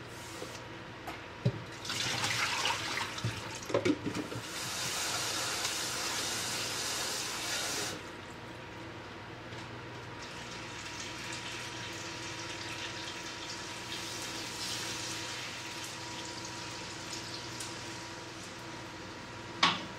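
Kitchen tap water running hard over bean sprouts in a plastic colander basket as they are rinsed by hand. The water cuts off about 8 s in, leaving a softer, steady sizzle of tofu cubes frying in oil in a pan, with a sharp knock near the end.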